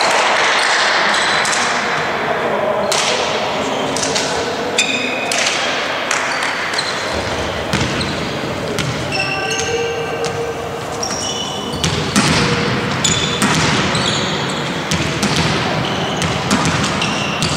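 Volleyball game noise in an echoing sports hall: sneakers squeaking on the hardwood court in short high chirps, the ball thudding now and then, and players calling out.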